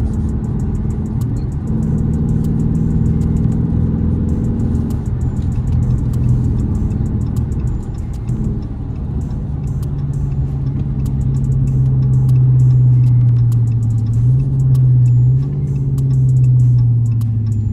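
Dodge Charger engine and road noise heard while driving, the engine note growing louder and holding steady through the second half, with music playing along.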